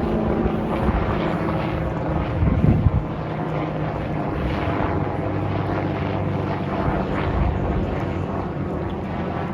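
Aircraft engines running steadily, with wind buffeting the microphone in the first few seconds.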